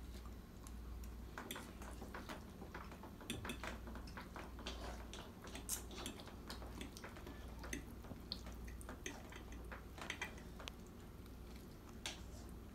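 Plastic forks tapping and scraping on glass plates while spaghetti is eaten: many light, scattered clicks.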